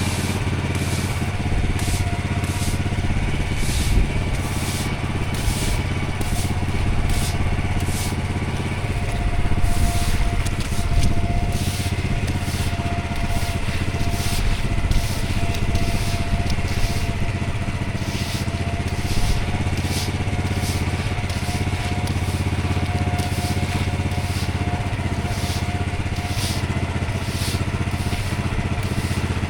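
Engine-driven pressure washer running steadily while its water jet blasts block paving, the spray hiss rising and falling in quick surges about once or twice a second as the jet sweeps across the surface.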